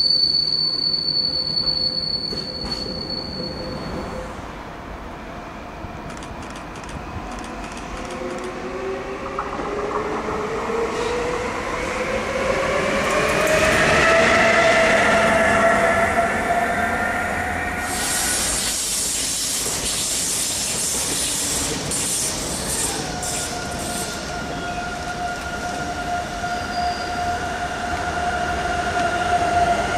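Electric freight trains passing. At first a high wheel squeal from a passing freight train, which stops about four seconds in. Then an electric locomotive's whine rises in pitch, and over the last several seconds a DB Class 145 locomotive hauling container wagons gives a steady whine.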